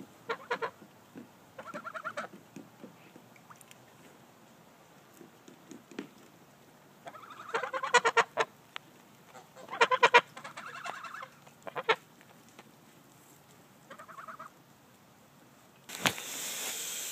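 Domestic geese honking in five or six separate bouts of harsh, pitched calls, loudest around the middle. Near the end a steady hiss comes in.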